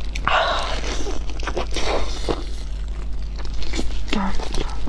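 Close-miked chewing of soft, wet meat: a run of quick wet mouth clicks and smacks, with a short burst of noise just after the start.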